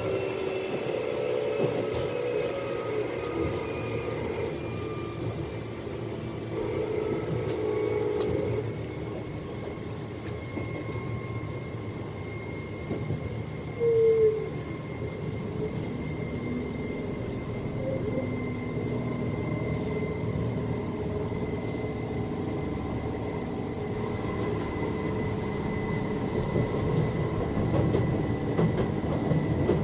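Tokyu 8500 series electric train running, its motor whine tones gliding slowly down over the first several seconds, then a steady whine over rail rumble. A brief louder tone breaks in about halfway through.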